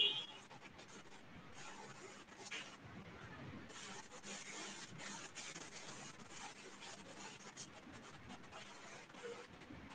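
A short high beep right at the start, then faint scratching and rubbing with scattered small clicks, a little louder from about four seconds in.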